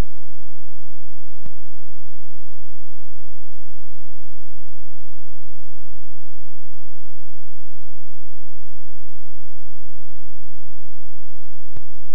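Steady electrical mains hum with a buzzing stack of even overtones and no voices: the programme sound has dropped out, leaving only hum on the audio line. A faint click comes about a second and a half in and another near the end.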